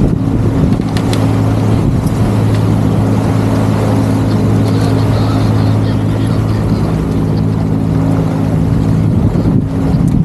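Boat engine running at a steady speed, an even hum, over rushing wind and water, with a few light clicks in the first few seconds.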